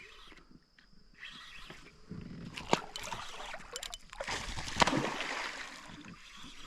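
Water splashing and sloshing in irregular surges, with a few sharp clicks and knocks.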